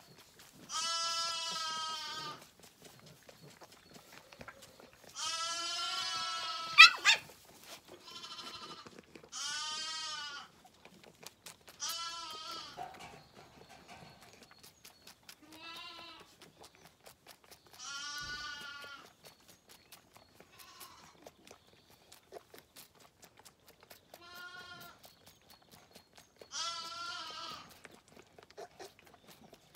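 Zwartbles lambs bleating again and again, about ten bleats of a second or so each, over soft quick clicks of a lamb sucking at a feeding bottle. About seven seconds in, a brief squeak sharply rising in pitch is the loudest sound.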